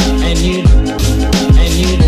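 Background music with a steady beat: deep, falling bass-drum hits under sustained chords.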